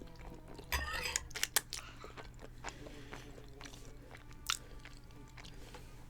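A person chewing a mouthful of Parmesan chicken and spaghetti close to the microphone, with wet mouth sounds and a few sharp clicks, busiest about a second in.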